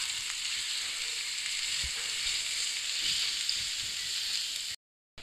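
Crushed garlic sizzling in hot cooking oil in a nonstick pan as it is stirred with a spatula, a steady high hiss that is frying the garlic to light brown. The hiss cuts off suddenly near the end.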